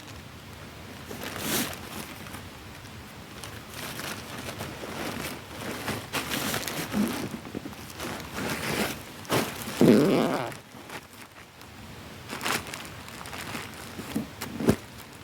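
Irregular rustling, scraping and zip-like handling noises, coming in short bursts, with the loudest burst about ten seconds in.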